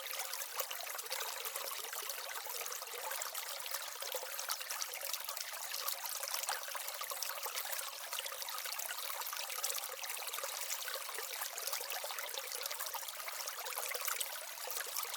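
Small waterfall and stream in an aquaterrarium, water trickling and splashing steadily.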